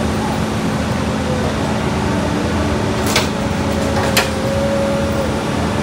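Heavy diesel construction machinery running steadily with an even drone, interrupted by two sharp clicks about three and four seconds in.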